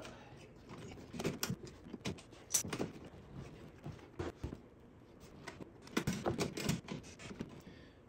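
Scattered light clicks, taps and rattles of hands working at a Porsche Boxster's front-trunk latch plate and the rubber seal and trim around it, with a busier run of clicks about six seconds in. The loosened plate is being tugged to slide it up, but it is stuck.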